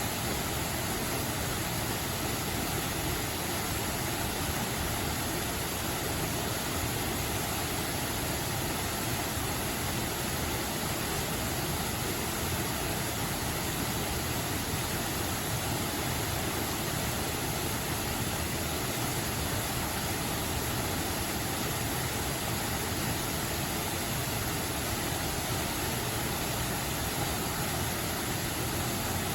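Steady rushing of a mountain stream's flowing water, an even hiss with no breaks.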